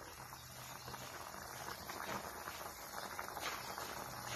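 Chicken and bitter gourd broth boiling hard in a pan: a steady bubbling.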